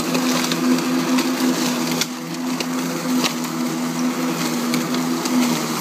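Greenworks 25302 40V Twin Force cordless lawn mower running steadily with its two blades spinning, a pitched electric hum, while chopping and sucking dry fallen leaves into its bagger with a busy crackle of ticks and snaps.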